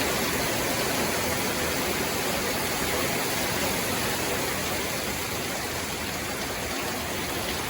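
Hail pelting down in a dense, steady hiss, easing off slightly near the end.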